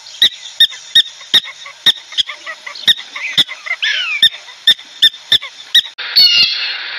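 Meerkat giving short, sharp chirps, about two or three a second, with one longer falling call near the middle. About six seconds in it changes to a blue jay's harsh, repeated calls.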